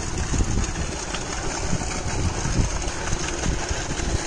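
Farm pump set running steadily, with water pouring from its outlet into the concrete tank: a continuous low rumble and rush of water.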